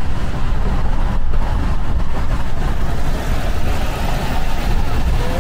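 Steady low rumble of a vehicle in motion, with an even hiss over it.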